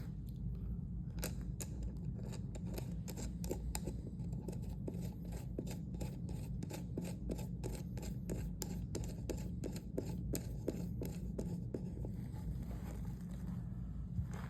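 Quick, irregular light clicks of small metal clock parts being handled, a few a second, as the washer is put back onto the quartz clock movement's shaft.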